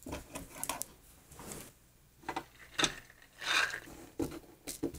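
Soft, irregular rubbing and light clicks from a small pipe-cleaner and pom-pom toy being handled.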